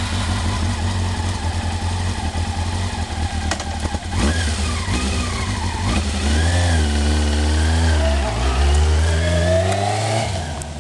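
Honda CBR sport motorcycle's engine, just started, running at a fast idle with a few blips of the throttle. About six seconds in it gets louder as the bike pulls away, the engine note rising as it accelerates.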